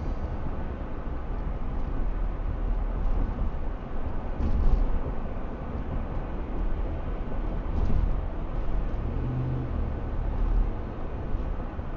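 Road and tyre noise with a steady low rumble inside a 2008 Ford F-150's cabin at around 45 mph, easing off slightly. A couple of short thumps, about four and eight seconds in, come from bumps in the road.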